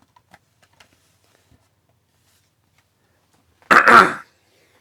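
A man's cough, loud and close on the microphone, about three and a half seconds in, after a few faint clicks.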